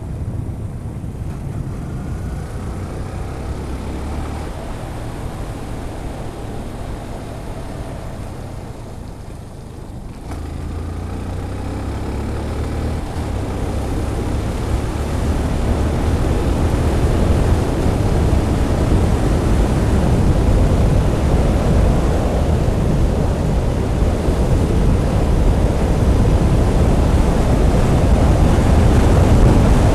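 Wind rushing over a motorcycle helmet camera's microphone while riding a Yamaha FZ16, over a low engine rumble. After a brief lull about a third of the way in, the wind noise builds steadily louder as speed rises. The deadcat windscreen on the microphone does not keep it out at speed.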